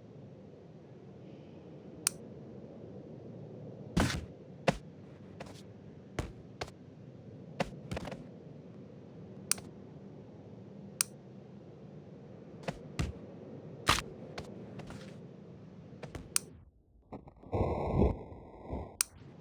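Sharp clicks and knocks at irregular intervals over a low steady hum. A louder muffled burst comes near the end.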